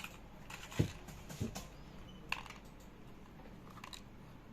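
Small parts and tools being handled and rummaged through, giving a few scattered light clicks and knocks, with a dull thump about a second in and a sharp click a little past the middle.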